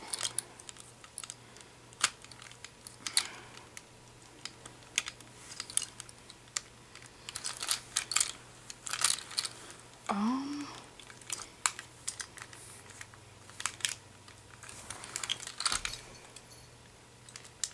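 Hard plastic and metal Beyblade launcher parts clicking and tapping as they are handled and pushed together, in irregular sharp clicks. A brief voiced hum comes about ten seconds in.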